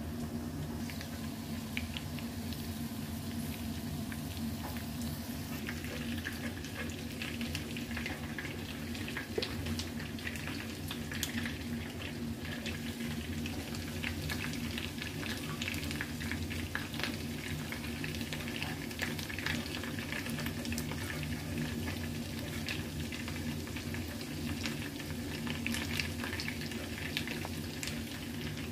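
Hot oil frying in a pan: a steady sizzle with frequent small crackles and pops, over a low steady hum.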